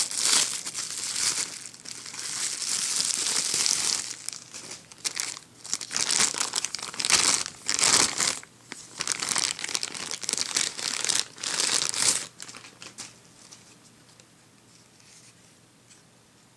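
Bubble wrap and a plastic bag crinkling and rustling in irregular bursts as they are pulled open by hand and peeled off a camera body. The crinkling stops about twelve seconds in.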